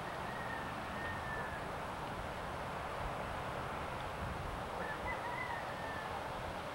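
Steady outdoor background noise with a low rumble, and a few faint, thin high-pitched sounds: one drawn-out sound about half a second to a second and a half in, and a couple more around five seconds in.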